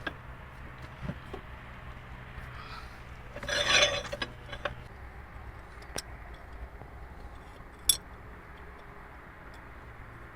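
Metal tools and parts being handled: a short rasping scrape about three and a half seconds in, then sharp metallic clinks near six and eight seconds. Under it is a low steady hum that stops about five seconds in.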